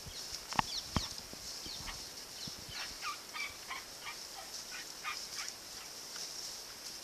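Dry-scrub outdoor ambience: a steady high-pitched drone throughout, two sharp snaps about half a second apart near the start, then a scatter of short bird chirps through the middle.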